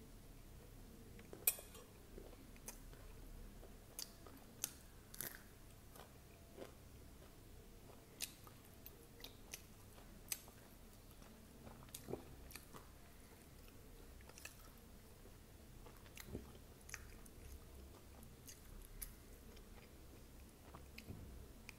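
Close-miked chewing of poha with crunchy sev and peanuts: faint, irregular crunches and mouth clicks, the sharpest about a second and a half in.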